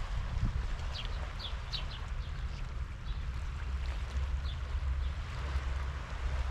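Steady low wind rumble on the microphone, with a few short high bird chirps scattered over it, several in quick succession about a second in and single ones later.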